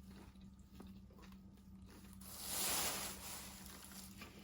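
Faint chewing with small mouth clicks, and a soft hiss of noise lasting about a second starting about two seconds in.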